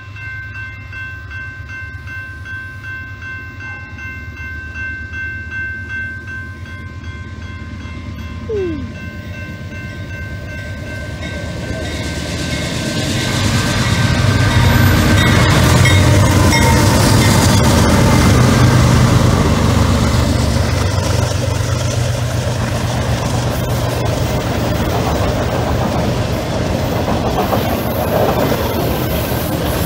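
Railroad crossing bell ringing steadily at a grade crossing as a BNSF diesel freight train approaches. About twelve seconds in the locomotive reaches the crossing and passes: loud diesel engine sound, then the steady noise of the freight cars' wheels rolling over the rails, which drowns out the bell.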